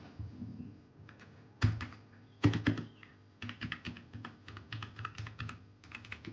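Keystrokes on a Royal Kludge RK84 mechanical keyboard with ABS double-shot keycaps: a few loud key hits about one and a half and two and a half seconds in, then a quick, uneven run of typing.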